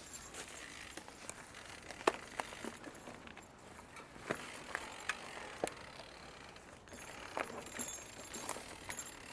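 Mountain bike being ridden over a rough dirt trail: irregular clicks and light metallic clinks from the chain and parts rattling over bumps.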